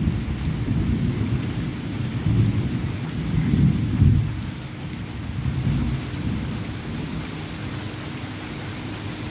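Rain falling steadily during a thunderstorm, under a low rolling rumble of thunder that swells several times in the first four seconds and then eases.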